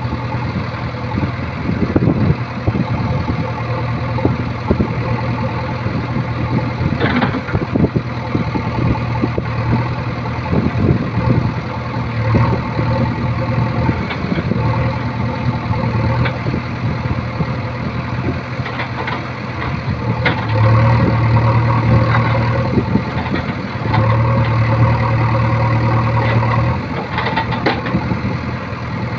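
Diesel engine of a JCB 3DX backhoe loader running steadily while the backhoe digs, its note swelling louder twice in the second half as the hydraulics take load. Scattered knocks and clatter of the bucket and falling soil and rocks.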